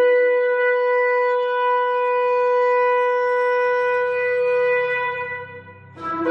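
Shofar (ram's horn) blown in one long, steady note that fades out about five seconds in, followed by a new blast starting just before the end.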